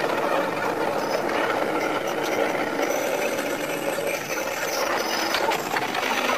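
Sanriku Railway type 36-200 diesel railcar running, heard from the driver's cab as it pulls into the terminus platform: a steady mechanical running noise with rattle. The recording is sped up five times, so the running sound comes out as a busy, fast chatter.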